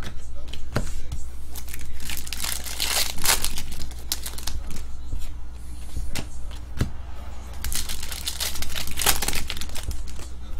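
Foil trading-card pack wrappers crinkling and tearing as packs are opened, with cards shuffled through by hand and a few sharp card snaps.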